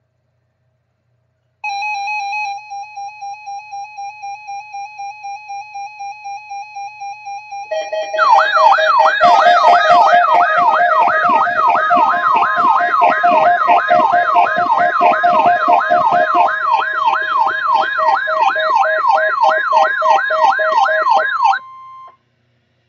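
Weather radio alert alarm sounding for a weekly test. A buzzy electronic beep pulses about three times a second, then a loud, fast-warbling electronic siren takes over, sweeping up and down two to three times a second over steady alert tones, and cuts off suddenly near the end.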